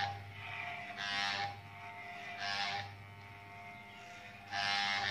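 Corded Wahl electric hair clipper running with a steady hum, its blades cutting through hair in three short strokes about a second and a half apart.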